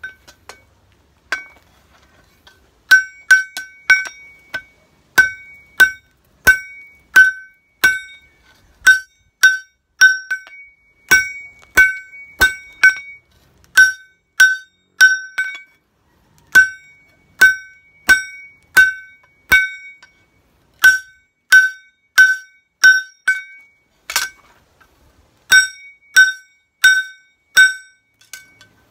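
Hand hammer striking a red-hot steel knife blank on an anvil, each blow ringing out with a bright metallic tone. The blows come steadily, about one and a half a second, in runs broken by short pauses.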